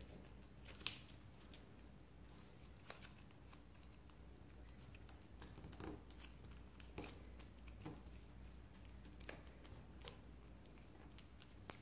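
Faint hand-folding of origami paper: scattered soft clicks and rustles as the paper is creased and pressed flat with the fingers, the sharpest click about a second in.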